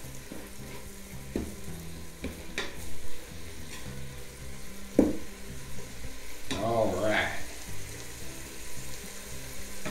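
Seasoned ground beef sizzling in a Ninja Foodi pot on sear/sauté while a wooden spoon stirs it, with a few sharp knocks of the spoon against the pot.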